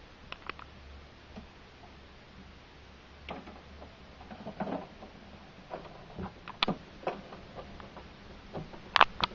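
Scattered light clicks and knocks of hands on the plastic casing of an Epson Stylus DX8400 all-in-one as its scanner unit is lifted open, busier from about three seconds in, with two sharp clicks near the end the loudest.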